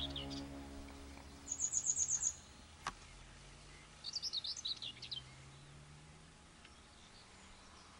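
Small songbirds singing in open farmland: a fast run of about eight high notes about a second and a half in, then a varied, quicker-changing phrase of high notes about four seconds in, over faint steady background noise.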